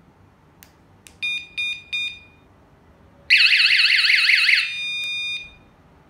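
Wireless magnetic door alarm unit beeping three short times, then sounding its siren as a loud, fast warbling wail for over a second, which drops to a quieter steady beep and cuts off. The alarm is answering a press on the newly synced remote key fob, and a couple of faint clicks come just before the beeps.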